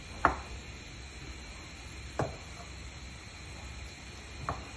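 A kitchen knife slicing through soft cooked pork and knocking on a wooden cutting board, three times about two seconds apart; the first knock is the loudest.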